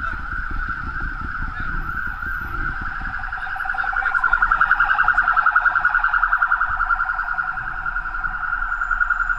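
Emergency vehicle siren sounding a fast, warbling wail, getting louder around the middle as the vehicle passes close by, over a low rumble of traffic.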